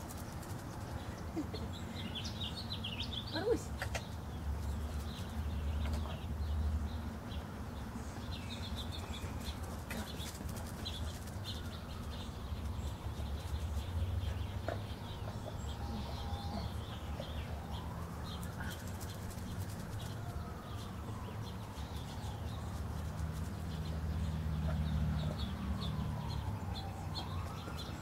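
Outdoor ambience of small birds chirping on and off over a low steady hum, with a faint slow rising and falling tone in the second half.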